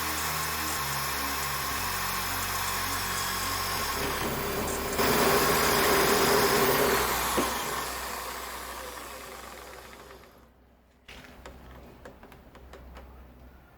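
Homemade wood lathe running steadily. About five seconds in it gets suddenly louder and noisier as a tool cuts into very hard, dense wood, then the sound fades away as the lathe winds down. After a break, a few faint clicks and knocks.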